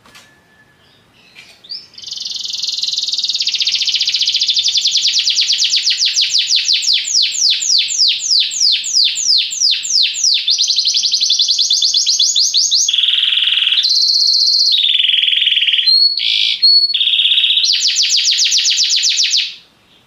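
Domestic canary singing one long unbroken song of fast repeated-note trills and rolls, the rhythm changing from phrase to phrase, with a lower, buzzier passage around the middle. It starts a couple of seconds in after a few soft chips and stops suddenly near the end.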